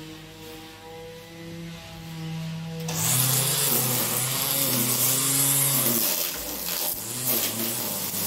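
Background music at first. About three seconds in, a cordless electric string trimmer starts up and runs loud and hissing, its line cutting through grass.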